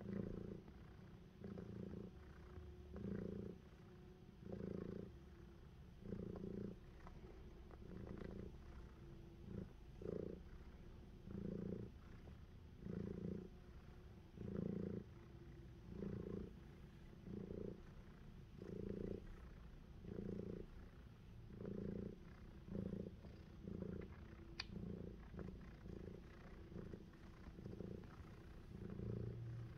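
Domestic cat purring steadily, the purr swelling and fading with each breath about every one and a half seconds.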